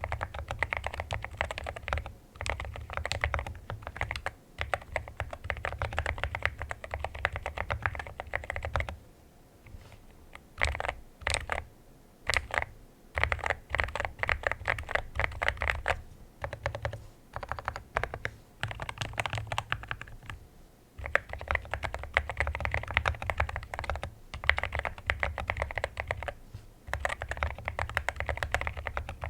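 Mechanical keyboard with Akko Rosewood switches being typed on: quick runs of keystrokes, easing to a few separate key presses about a third of the way in, then fast typing again.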